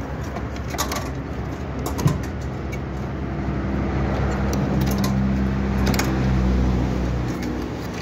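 Low engine rumble of a road vehicle running close by, swelling a few seconds in and dropping away near the end, with a few sharp clicks of wire connectors being worked off a thermostat's terminals.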